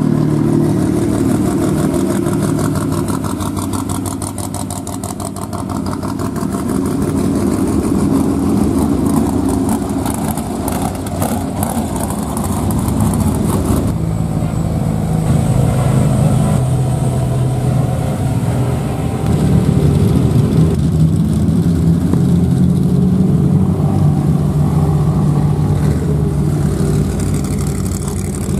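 Off-road race trucks and an off-road buggy running at low engine speed as they drive slowly past one after another. The engine sound changes abruptly about halfway through.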